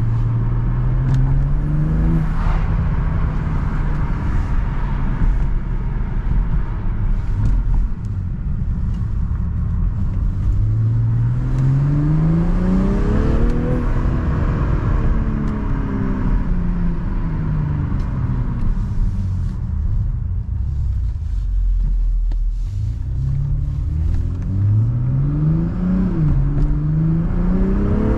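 BMW M340i's stock turbocharged 3.0-litre inline-six under way, its note climbing in pitch as the car accelerates, falling away as it eases off, then climbing again near the end with a brief dip partway up, as at a gearshift.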